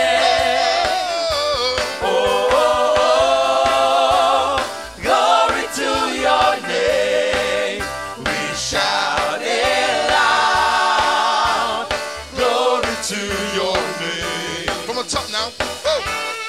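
Gospel worship music: several voices singing long, wavering notes in phrases of about two seconds, with instrumental accompaniment.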